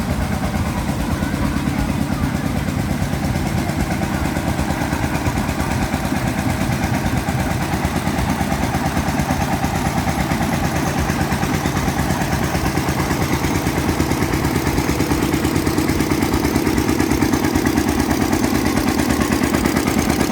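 Vintage engine running steadily with a fast, even beat, growing a little fuller and louder from about two-thirds of the way in.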